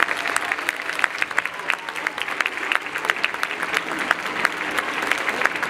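Audience applauding: many people clapping hands at once in a dense, steady patter of claps.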